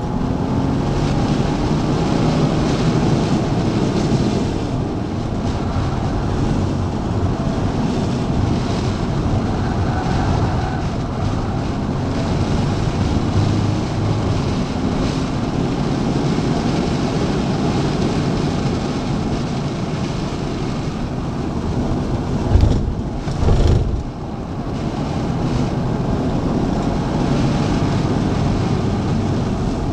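BMW's engine running hard at around five to six thousand rpm, heard from inside the cabin under steady road and wind noise as the car laps a circuit at over 100 km/h. A couple of low thumps come about three quarters of the way through.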